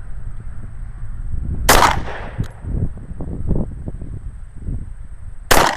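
Two pistol shots, about four seconds apart, each followed by a short echo.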